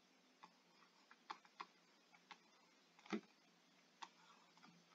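Faint, irregular taps and clicks of a stylus on a tablet screen as numbers are handwritten, about seven in all, the loudest about three seconds in, over near silence.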